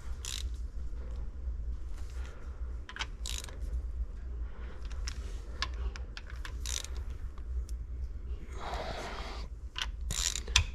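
Ratchet wrench and hand tools clicking irregularly on metal as the new water pump bolts on a 3.0 MerCruiser engine are snugged down, with a short scraping sound near the end and a steady low hum underneath.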